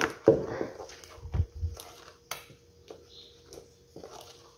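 A spoon beating thick chocolate cake batter in a stainless-steel bowl: irregular soft clicks and scrapes of the spoon against the bowl, with a couple of low thumps about a second and a half in.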